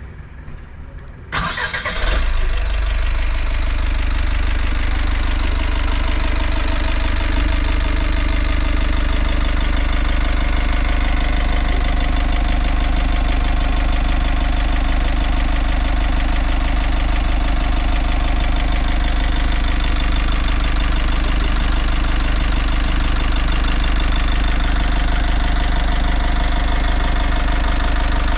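Mitsubishi L300 common-rail turbo-intercooler diesel engine starting about a second in, then settling into a steady idle.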